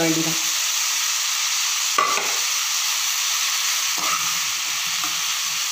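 Chopped onions and vegetables sizzling steadily in oil in a pressure pan as wheat rava is added, with a spatula scraping and knocking against the pan about two seconds in and again about four seconds in.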